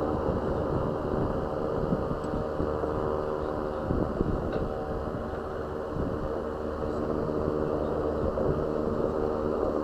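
BMW's engine running with a steady mechanical hum, with uneven low rumbling underneath.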